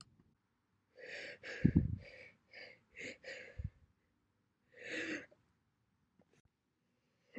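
A person's breathy gasps and exhalations between hiccups: a quick run of them over a couple of seconds, one more about five seconds in, with two short low thuds among them.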